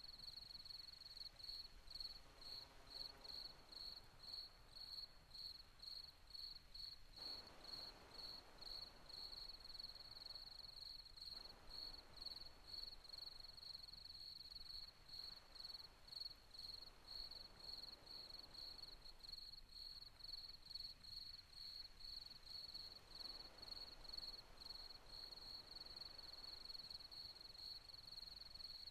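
Faint cricket chirping steadily, about two high chirps a second, over a low hiss.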